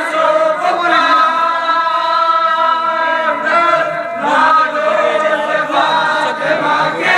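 Group of men's voices chanting a Shia mourning lament (nauha) together in long, drawn-out notes, with a short pause midway.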